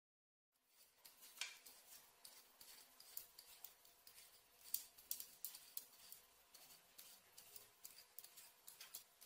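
Light, irregular clicks and scrapes from kitchen utensils during food preparation, starting about half a second in.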